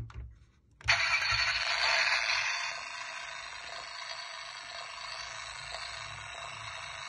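Toy Lamborghini Urus model's built-in sound unit, switched on by pressing the car with a click, playing a tinny recorded engine start and rev about a second in that then settles to a steadier, quieter running sound, part of its exhaust imitation.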